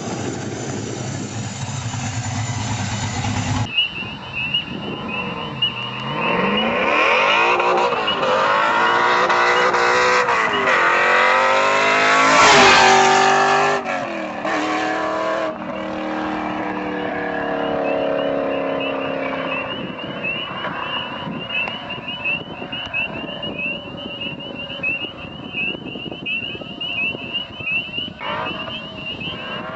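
1999 Camaro SS's modified 6.0-litre iron-block V8 with a big custom-grind cam, idling steadily, then accelerating hard through the gears in a fly-by. Its pitch climbs and drops back at each shift, is loudest as the car passes, then falls away and fades. Near the end it starts to rev up again.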